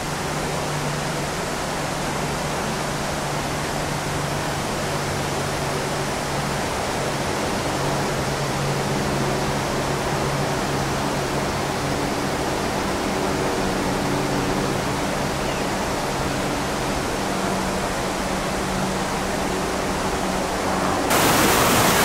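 Steady rushing of a waterfall and its creek, an even roar of water, with faint low steady tones underneath. About a second before the end it jumps louder and brighter as the rushing water is heard close up.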